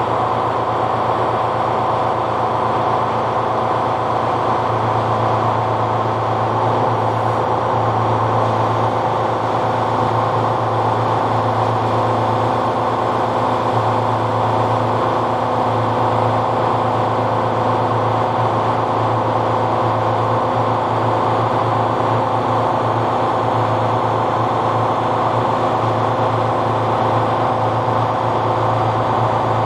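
Tuxing twin-cylinder high-pressure air compressor running steadily at an even pitch.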